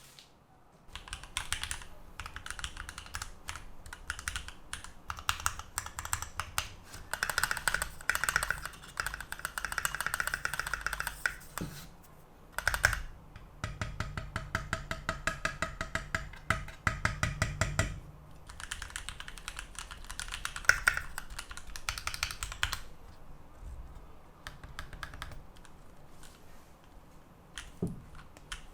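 Typing on a Keychron Q2 mechanical keyboard: fast runs of key clicks with short pauses between them, thinning to a few scattered keystrokes near the end.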